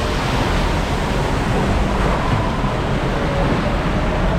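Steady rushing water of a water ride's channel flowing around the boat.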